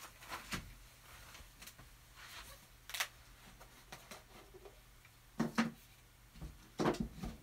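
Scattered light clicks and knocks of paint tubes and art supplies being handled and rummaged through, with the louder knocks clustered in the second half.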